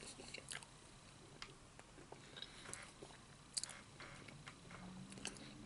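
A person chewing a mouthful of food, faint, with small wet mouth clicks and smacks scattered throughout.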